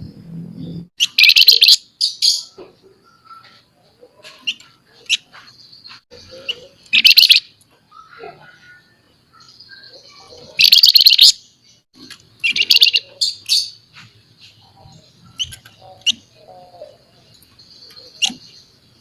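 Flamboyan songbird singing a rapid, scratchy chattering song in loud bursts of about a second each, four of them. Between the bursts come short calls and thin, high held notes.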